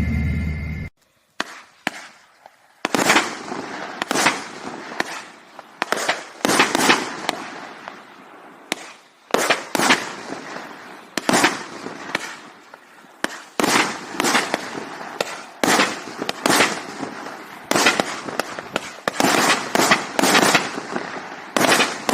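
Raccoon 25-shot 500-gram firework cake firing its red, white and blue tails to thunder: a steady string of sharp, loud bangs, about one a second, each dying away with an echo.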